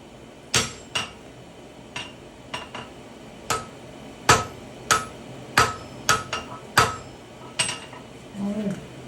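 Hammer and sledge blows on hot iron over an anvil: about fifteen ringing strikes at uneven spacing, the smith and his striker forge-welding the tomahawk body. A brief voice sounds near the end.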